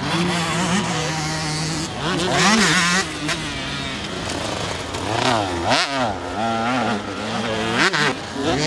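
Two-stroke motocross bike engine running hard, its pitch rising and falling repeatedly as the throttle is worked through turns and over jumps.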